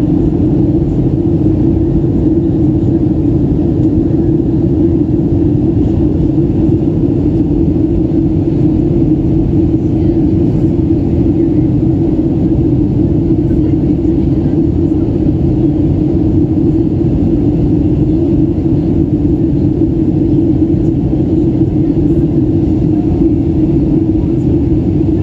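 Steady cabin noise of a Boeing 737 in flight on its descent: jet engine and airflow noise heard from inside the cabin, a constant low rumble with a steady hum.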